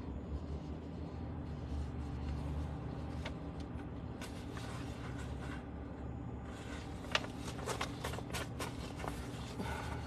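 Steady low hum inside a car's cabin, with a cluster of sharp clicks about seven to nine seconds in.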